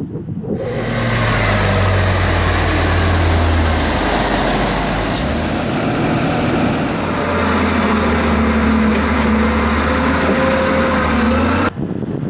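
Heavy diesel farm machinery running steadily close by during maize harvesting, its engine note shifting a little in pitch about halfway through. It cuts off abruptly about a second before the end.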